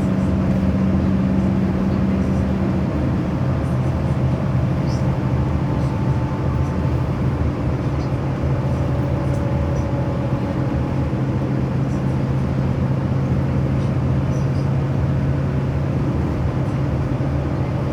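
Steady drone of a running vehicle engine, holding one pitch throughout.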